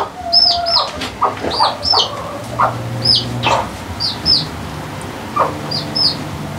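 Bantam chicks peeping: high, falling cheeps, mostly in pairs, about once a second. A hen's short, lower clucks come in between.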